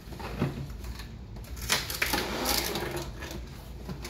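A cardboard laptop box being cut open with scissors and handled: irregular scraping and rustling of cardboard and tape, loudest about halfway through.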